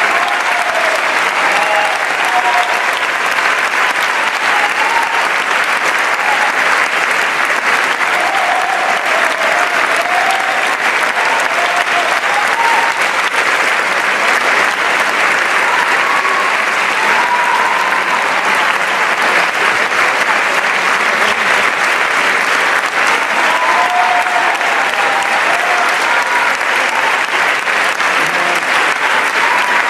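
Theatre audience applauding steadily, a dense even clapping that does not let up.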